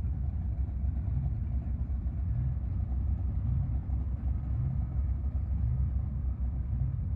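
A car engine running steadily, its sound sitting mostly in the low pitches with a slight regular pulsing.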